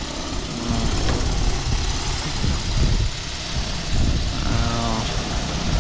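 DJI Agras T40 agricultural spraying drone's coaxial rotors running steadily as it hovers low overhead, coming down to land.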